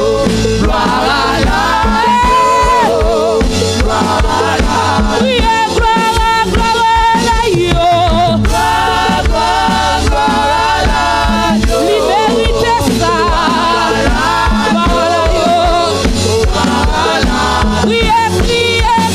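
Live gospel worship singing: a woman leads the song with backing singers joining in, over instrumental accompaniment with bass and a steady beat.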